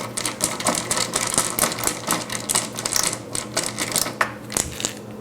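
Rapid, irregular clicking and clattering of small hard parts and hand tools being worked on the sterilizer, over a steady low hum.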